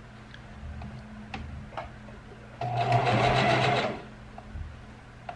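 Electric sewing machine stitching through a wig in one short run of about a second and a half, starting about halfway through and stopping abruptly, after a few light clicks.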